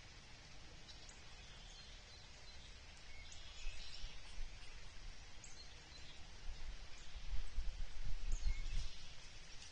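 Outdoor ambience: a low rumble that swells between about seven and nine seconds in, with faint, scattered high bird chirps.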